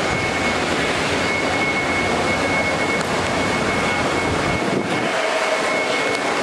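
Steady rushing background noise with a thin, steady high-pitched whine; the deepest rumble drops away about three-quarters of the way through.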